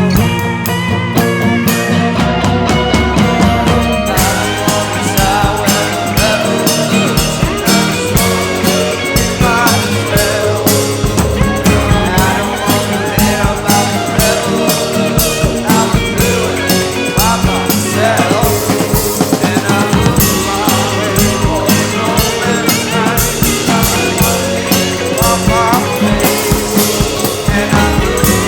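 Psychedelic rock band playing, a drum kit keeping a steady beat under a lead line that bends in pitch.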